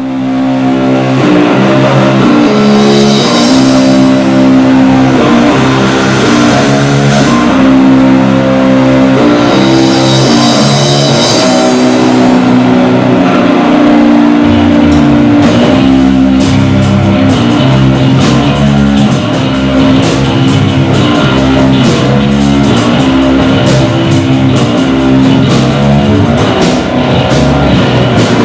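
Live rock band playing: a repeating electric guitar and bass riff, with the full drum kit coming in hard about halfway through.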